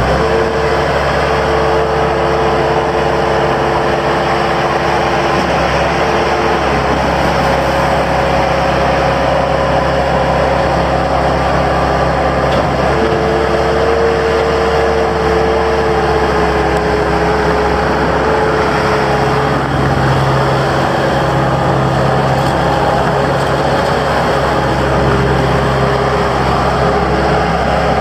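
Bobcat 864 skid steer loader's diesel engine running steadily, with a whining tone that drops out and comes back at a slightly different pitch a few times.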